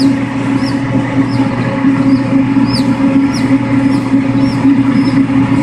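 A day-old silkie chick peeping repeatedly while it is held for vent sexing: short, high peeps that fall in pitch, about one every two-thirds of a second, over a steady low hum.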